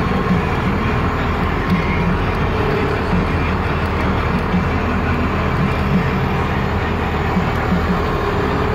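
Engine of a loaded grain truck running steadily at low speed as the truck creeps forward to line up its tires for unloading.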